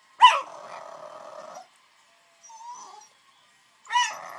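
Small dog vocalizing twice, begging for food. Each call opens with a sharp yip and runs on for about a second as a drawn-out whining grumble. There is a brief soft whine between the two calls.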